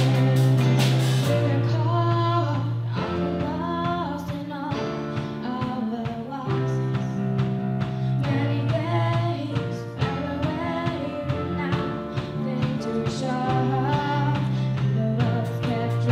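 Live band song: a female vocalist sings over guitars, held low bass or keyboard notes and a drum kit. The cymbals and drums are busier near the start and near the end, with a sparser stretch between.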